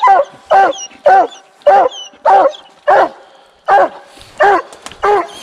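Coonhound barking treed, a steady chop of about nine loud barks at nearly two a second: the call that tells the hunters it has a raccoon up the tree.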